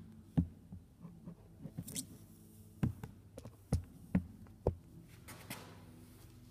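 Irregular knocks, thumps and rubbing from a phone being handled and set in place, with a steady low hum underneath.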